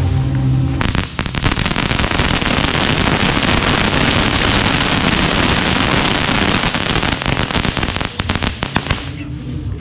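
Crackling ball firework, a seven-piece cluster, going off: about a second in it breaks into a dense, rapid crackling. Near the end this thins to scattered separate cracks and dies away.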